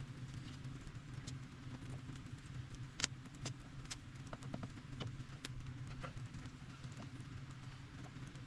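Scattered sharp clicks and light knocks, one louder about three seconds in, over a steady low hum.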